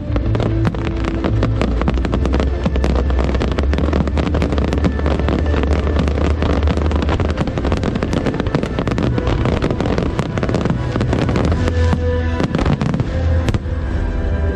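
Fireworks bursting and crackling in a dense, continuous barrage, mixed with loud music that has a heavy bass.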